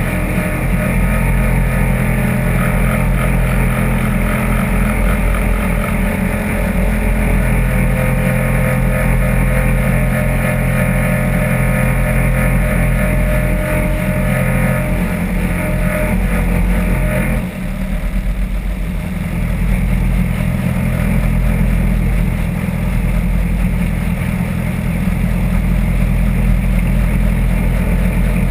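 Off-road buggy engine running steadily, heard from onboard the cockpit. About two-thirds of the way through, the higher hiss drops away suddenly while the low engine note carries on.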